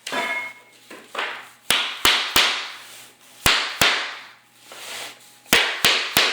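Hammer blows on a plastic tapping block, knocking engineered hardwood floorboards tight at their glued tongue-and-groove joint. There are about eight sharp knocks in three quick groups, the first group about a second in, after a brief scrape at the start.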